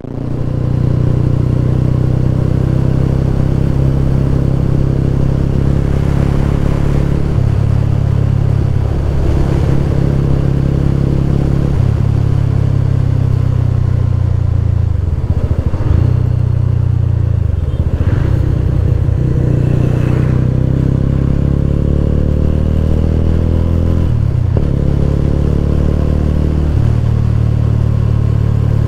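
Mahindra Mojo's 295 cc single-cylinder engine pulling under way, its exhaust note climbing with the revs and dropping briefly several times, as at gear changes.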